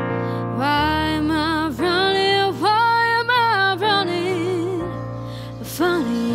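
A young woman singing a slow ballad, holding long notes with vibrato, over sustained keyboard chords.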